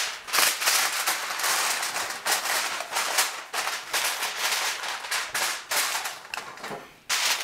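Sheet of aluminium foil crinkling and crackling as it is pressed down and crimped around the rim of a metal roasting pan, in a continuous run of sharp crackles with one loud crunch near the end.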